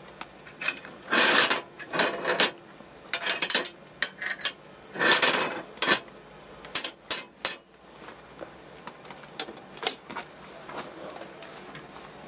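Clinking, knocking and scraping of small objects being handled by hand. There are several half-second scrapes in the first half, a quick run of sharp clicks about seven seconds in, and a single knock near ten seconds.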